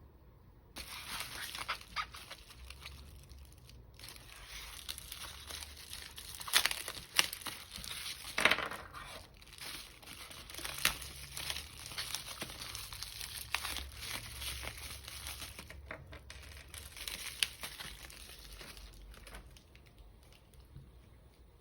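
Packaging being handled and opened: a long stretch of crinkling rustle with many sharp crackles, settling down near the end.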